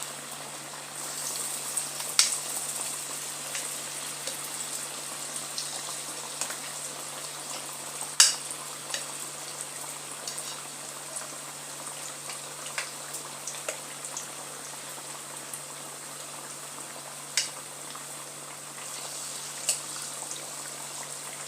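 Batter-coated potato slices deep-frying in hot cooking oil in a wok, sizzling steadily, with several sharp pops of spitting oil, the loudest about eight seconds in.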